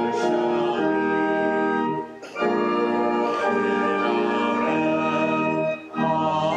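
Church organ playing a hymn with voices singing along in held chords, pausing briefly twice between phrases.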